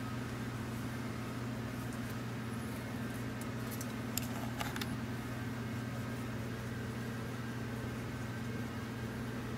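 Steady low background hum, with a few faint clicks about four to five seconds in.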